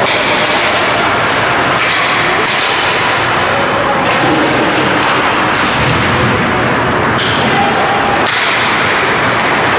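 Ice hockey play: several sharp slaps and knocks of sticks and puck, scattered unevenly, over a steady loud hiss of rink noise.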